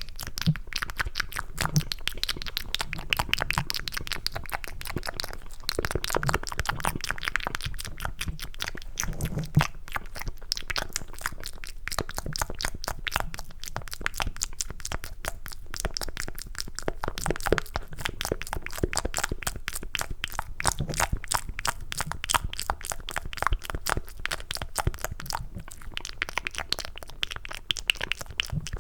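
Cupped ASMR mouth sounds: a fast, continuous run of wet clicks and crackles close to the microphone, made to sound like chewing mac and cheese.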